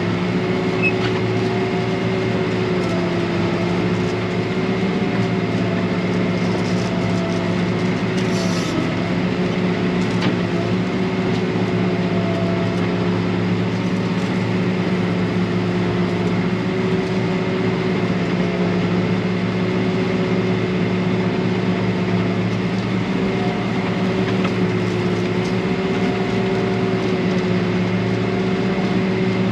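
John Deere tractor's engine running steadily, heard from inside the cab, with a thin steady whine above the drone and only slight changes in engine speed.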